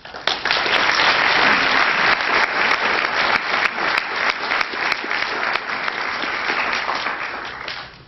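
Audience applauding: dense clapping that starts suddenly and dies away about eight seconds later.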